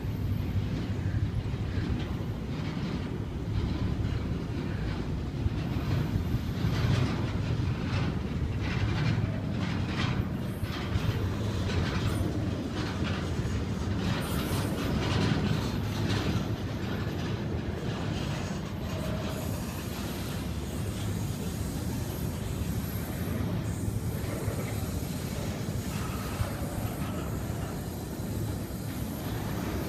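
Double-stack intermodal freight train's well cars rolling slowly past at about 7 mph: a steady low rumble of wheels on rail, with irregular clicks and clanks that are thickest in the first half and thin out after about 18 seconds.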